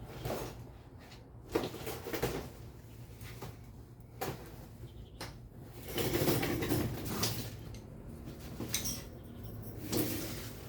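Scattered knocks and clatter with scraping, as of objects being handled and set down, with a longer, louder scrape about six seconds in.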